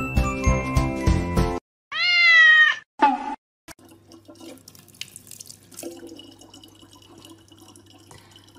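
Tinkling music that stops about a second and a half in, then one loud cat meow and a short second sound. After that, a faint thin stream of tap water trickles into a plastic bottle over a low steady hum.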